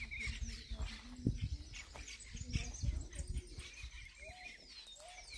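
Several birds calling in the open air: high descending whistles, and from about four seconds in a short repeated call about twice a second. A few low thumps and some rumble underneath.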